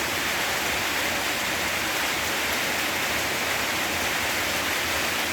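Steady rain falling, an even wash of noise that holds constant.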